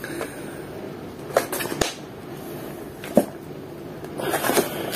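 Plastic lid being pried off a tub of dates: a few separate sharp plastic clicks, then a denser run of clicking and scraping near the end.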